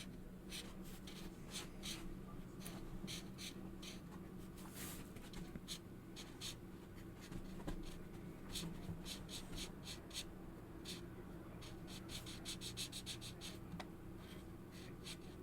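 Felt-tip markers rubbing across paper in short colouring strokes, with a quick run of rapid back-and-forth strokes about three-quarters through. A faint steady low hum sits underneath.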